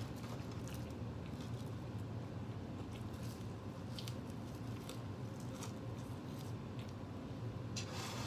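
A person chewing and biting a burger and fries, with scattered small clicks and rustles from handling the food and a louder rustle near the end. A steady low hum runs underneath.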